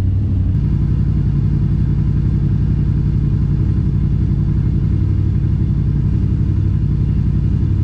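Yamaha Wolverine RMAX's 999 cc parallel-twin engine idling steadily at about 1,300 rpm, running on a freshly flashed Weller Racing tune.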